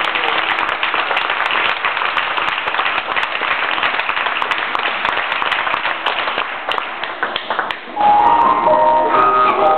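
Audience applauding, a dense patter of many hands clapping. About eight seconds in, louder music starts, a melody of clear, held notes.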